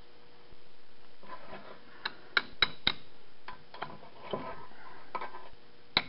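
Metal parts being handled: a steel differential carrier and a flat steel spacer ring clinking and scraping on a workbench, with a few sharp clicks about two to three seconds in and two more near the end.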